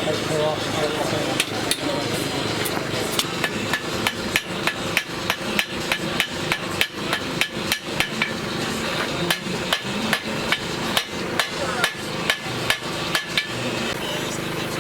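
A hand hammer striking repeatedly in a steady rhythm, about two to three blows a second, starting about a second and a half in and stopping near the end.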